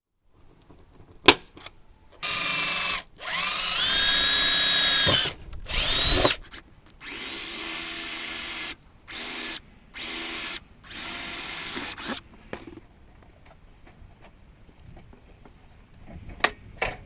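Electric drill run in about six short bursts, its motor whine rising in pitch as it spins up and then holding steady. Sharp clicks come just before the first burst and again near the end.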